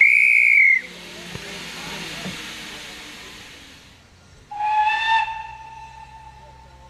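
Steam locomotive scene: a short, shrill whistle blast at the start, then steam hissing. About halfway through, a lower steam whistle sounds, loud for under a second and then held more faintly.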